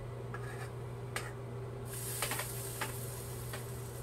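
A metal spoon stirring gravy in an enamelled pan, with a few light clicks of the spoon against the pan over a steady low hum; a faint high hiss comes in about two seconds in.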